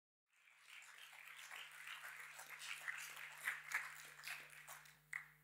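Audience applauding, fading in just after the start and dying away near the end, over a steady low hum.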